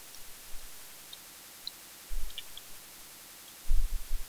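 A few faint clicks and soft low thumps of a computer mouse being moved and clicked on a desk while drawing, over a steady hiss.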